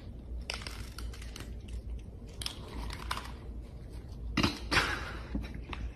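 Cats crunching dry kibble from a bowl: irregular crunches and small clicks, with the loudest burst of crunching a little after four seconds in.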